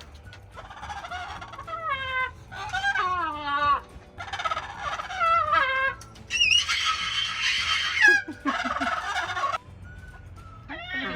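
Pet parrots calling: a string of wavering calls that slide up and down in pitch, then a long, harsh screech about six seconds in, the loudest sound here, and another harsh call after it before they quiet down.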